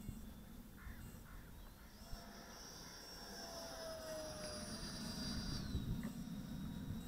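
The 64 mm eight-blade electric ducted fan of an RC model jet whining in flight, faint over wind rumble on the microphone. The high whine climbs in pitch about two seconds in, holds, and falls back near the end.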